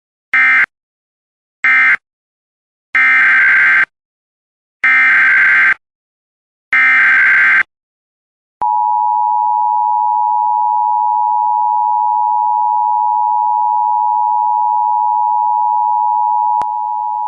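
Emergency Alert System tones: two short SAME data bursts with a digital screech, which end the previous alert, then three longer one-second SAME header bursts that open the next alert. About eight and a half seconds in, the steady two-tone EAS attention signal starts (853 and 960 Hz together). It holds, with a small click and a slight drop in level near the end.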